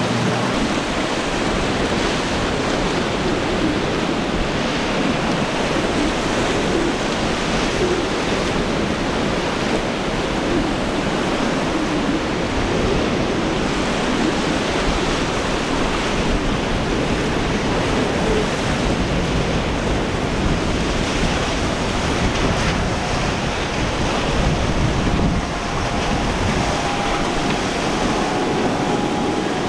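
Waves and surf washing at a rough ocean inlet, a steady rushing noise, with wind buffeting the microphone. Near the end a faint steady tone joins in.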